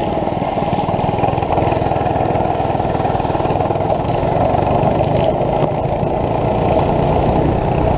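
Small pull-start go-kart engine with an aftermarket loud exhaust running steadily under way.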